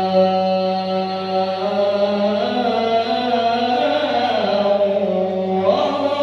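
Young male qari reciting the Quran in a melodic style: one long, held, ornamented phrase whose pitch shifts slowly and climbs near the end.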